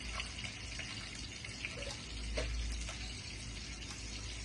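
Peeled hard-boiled eggs frying in a little oil: a steady gentle sizzle with a few small crackles.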